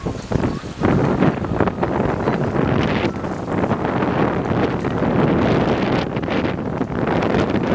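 Wind buffeting the microphone: a loud, gusty rumble that surges and dips irregularly.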